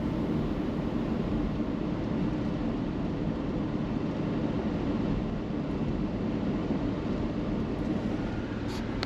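Steady road and engine noise from a car driving along.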